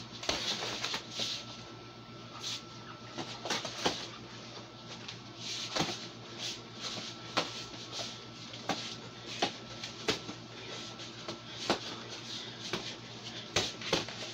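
Boxing gloves smacking during close sparring: irregular sharp hits, sometimes two or three in quick succession.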